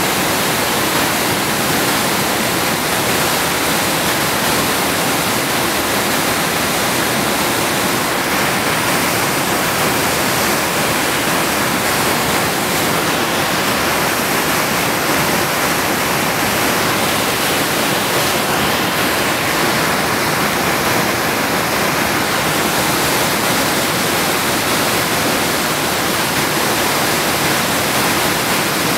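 Creek rapids rushing: a steady, unbroken wash of whitewater tumbling over rocks.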